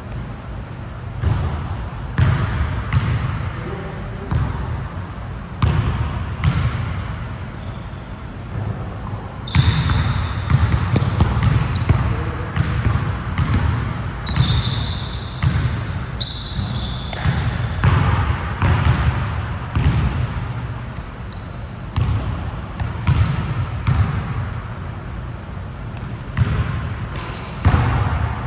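Basketball being dribbled and bounced on a hard court, a string of sharp bounces throughout. Short high squeaks are heard in the middle stretch, typical of sneakers on the court floor.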